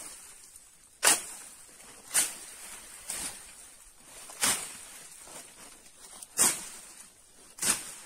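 Axe chopping into wood, six sharp strikes at an uneven pace, about one to two seconds apart.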